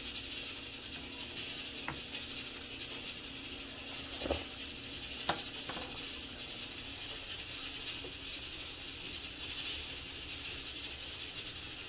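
A stainless steel pot of seaweed soup with beef simmering, bubbling and hissing steadily, with a few sharp ticks and pops.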